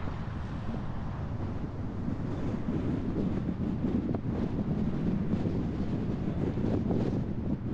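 Car driving along a street: a steady low rumble of road and engine noise, with wind buffeting the microphone.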